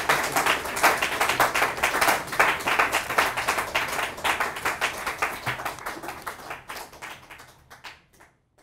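An audience clapping, dense and steady at first, then thinning out and dying away in the last few seconds.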